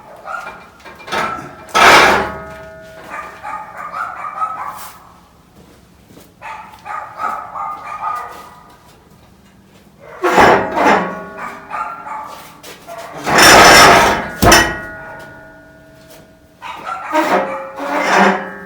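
Dogs barking and whining, with drawn-out whines between loud outbursts about two seconds in, about ten seconds in, and a longer one near fourteen seconds.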